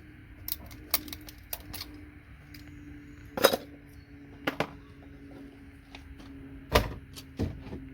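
Irregular sharp clicks and knocks of small electronic scrap being handled and tapped, hard plastic and metal pieces striking each other and the work surface; the two loudest knocks come about three and a half and seven seconds in. A faint steady hum runs underneath.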